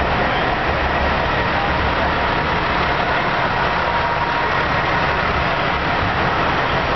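Idling diesel truck engines: a steady, even noise with no breaks.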